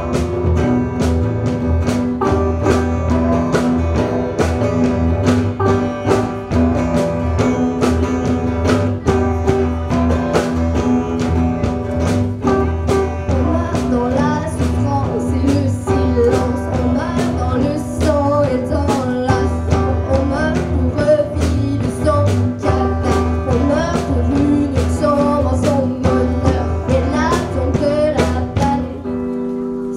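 Live rock band of young players: drum kit keeping a steady beat under electric guitars, bass guitar and keyboard, with a girl singing lead into the microphone.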